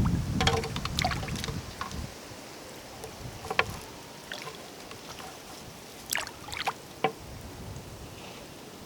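Water splashing and sloshing in short separate bursts, with a low rumble during the first couple of seconds.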